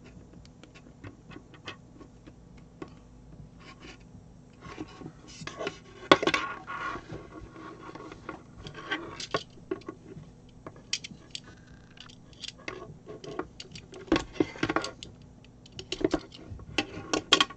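Hands working the end of an Ethernet cable and its plastic connector boot: scattered small clicks and rustling, with louder scraping bursts about six seconds in and again around fourteen and seventeen seconds in.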